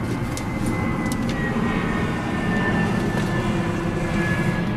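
Steady low vehicle rumble, with a faint high whine slowly dropping in pitch, and a few light knocks and clicks in the first second as hockey sticks and gear are pulled from the back of a car.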